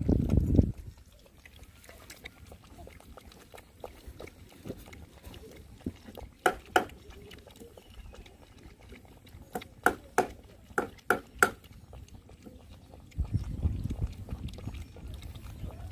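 Puppy lapping and slurping milk from a plate: scattered short wet clicks and snuffles, with a cluster of louder slurps in the middle. A low rumbling noise fills the first second and returns near the end.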